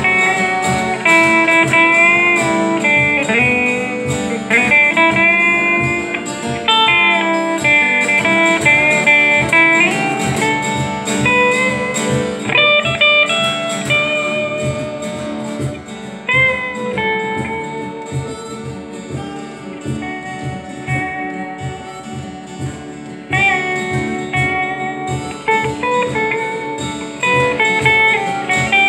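Acoustic guitar playing a bluesy tune, with a steady run of picked notes.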